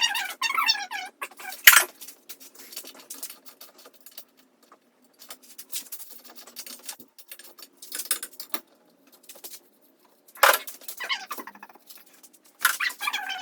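Scattered clicks, taps and small rattles of bicycle parts and hand tools being handled, the sharpest knock about two seconds in. A few short squeaky sounds that change in pitch come near the start, about ten seconds in, and near the end.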